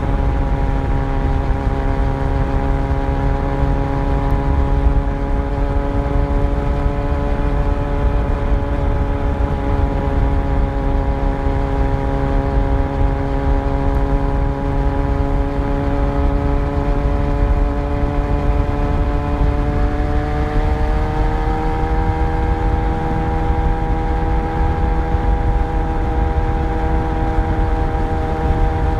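Yamaha FZ1 motorcycle's inline-four engine running steadily on the move. Its pitch rises a little about twenty seconds in and then holds.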